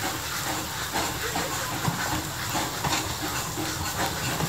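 Narrow-gauge passenger coaches of the Talyllyn Railway rolling slowly past behind a steam locomotive. The wheels click and knock irregularly over the rail joints, over a steady hiss of steam.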